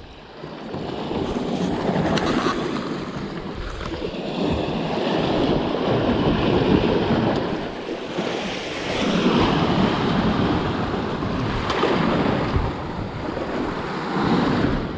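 Sea waves surging and breaking over a rocky shoreline, the wash swelling and easing every few seconds.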